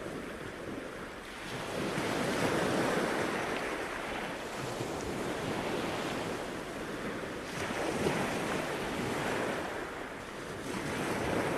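Surf breaking and washing up the beach, swelling louder every few seconds, with wind on the microphone.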